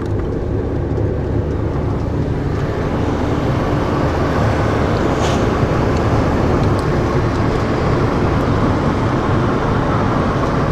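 Road noise inside a moving Daihatsu Hijet Cargo kei van: a steady low engine-and-tyre rumble with a hiss over it, growing slightly louder about two seconds in.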